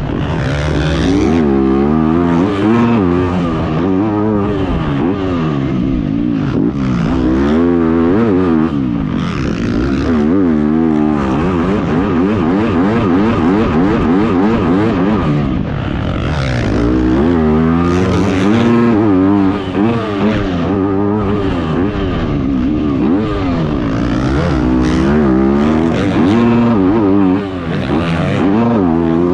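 Yamaha motocross bike's engine revving hard and dropping off again and again, rising and falling in pitch every second or two as the throttle is worked through the jumps and turns of a motocross track.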